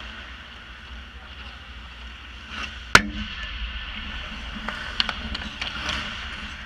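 Ice hockey skates scraping and carving on the ice around the goal, with one loud, sharp crack of a puck shot striking the goal area about three seconds in. Lighter clacks of sticks and puck follow between five and six seconds in.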